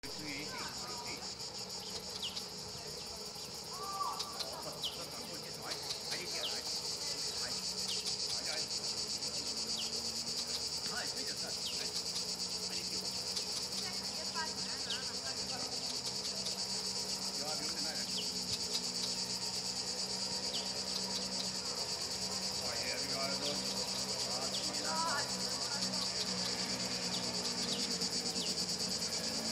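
A steady, high-pitched chorus of insects chirring, growing louder about six seconds in, with a few faint short chirps here and there.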